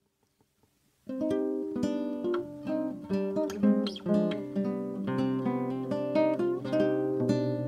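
Acoustic guitar music, plucked notes and chords, starting abruptly about a second in after near silence.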